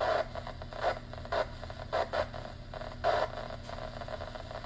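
Yaesu FT-891 ham transceiver receiving a 10-metre FM repeater channel: hissy static with irregular crackling bursts over a steady low tone. The operator puts it down to picking up several repeaters at once and one of them being jammed.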